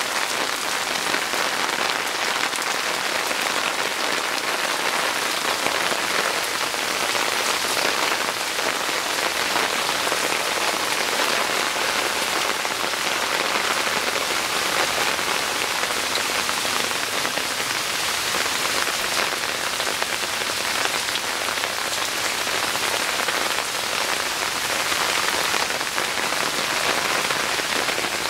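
Steady, heavy rain falling on garden plants, flowerpots and waterlogged ground.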